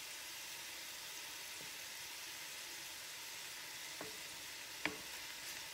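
Chicken strips with green pepper and onion frying in a cast-iron skillet, a steady sizzle. A few light knocks of a wooden spatula against the pan as the meat is stirred, the loudest near the end.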